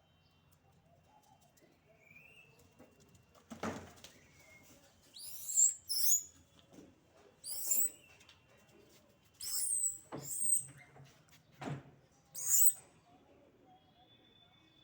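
Monkeys giving short, shrill squeals, about six of them in quick groups, with a few sharp thumps among them.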